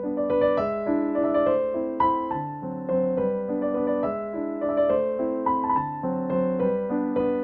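Background piano music, a gentle electric-piano melody with chords played in a steady flow of notes.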